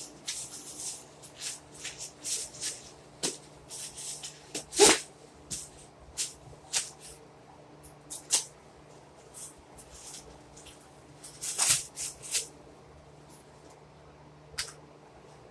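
Irregular rustling and clicking of plastic toy packaging being handled, with scattered short crackles that thin out after the first half, over a faint steady hum.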